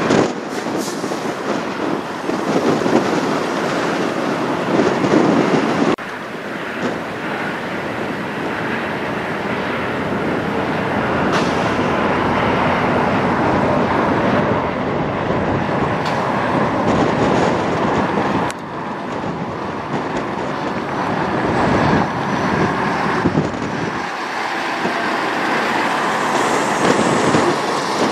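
Semi tractor-trailers driving slowly past and turning, diesel engines running and tyres rolling on pavement, with sudden changes in sound twice where one truck's pass gives way to the next.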